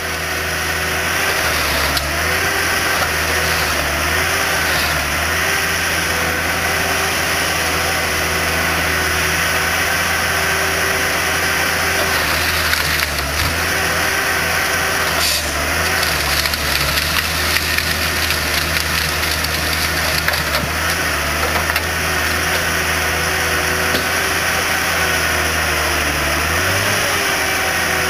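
Valmet 911.1 X3M forest harvester running steadily as it works a log with its Waratah 470 harvester head, with a steady higher whine over the engine. The engine pitch wavers briefly a few times, and there is one sharp knock about halfway through.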